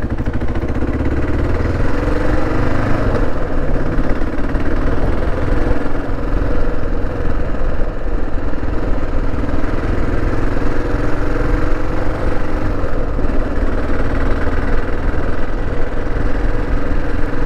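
Kawasaki KLR 650's single-cylinder engine running steadily while the motorcycle is ridden along, its pitch shifting slightly up and down.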